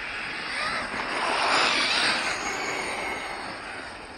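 Radio-controlled truck driving past on the track, its tyre and motor noise swelling and then fading away.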